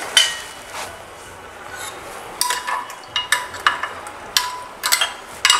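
Metal spoon clinking and scraping against a glass dish while chicken is stirred in a wet marinade: one clink at the start, then a quick string of ringing clinks from about halfway through.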